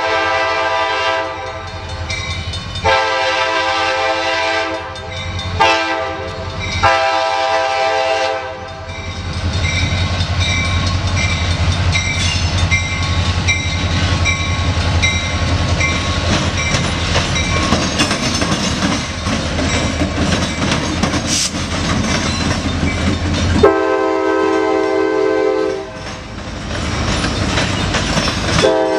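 Chesapeake & Indiana diesel freight locomotive blowing its horn for a grade crossing in the long, long, short, long pattern. The engine then rumbles and the wheels clatter on the rails as the locomotive and its covered hopper cars pass close by. The horn sounds again twice near the end.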